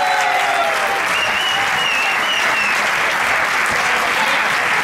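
Audience applauding steadily, with high-pitched calls and voices rising over the clapping.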